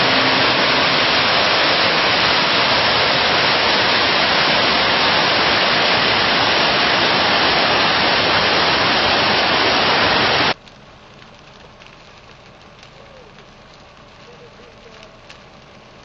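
McDonald Creek's whitewater rapids rushing loud and steady. About ten and a half seconds in the sound cuts off suddenly to a much fainter hiss with a few faint clicks.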